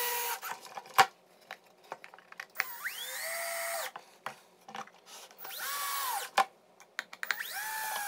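Cordless drill driving screws into the corners of a pine 2x6 frame: three short runs, each spinning up and winding down as the screw seats. There is a sharp knock about a second in.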